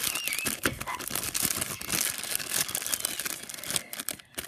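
Thin clear plastic bag crinkling as hands work a small toy figure out of it: a dense run of small crackles that stops shortly before the end.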